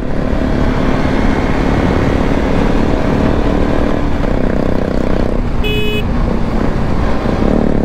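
Motorcycle engine running at speed with steady wind rush on the microphone, and a short horn beep a little after halfway.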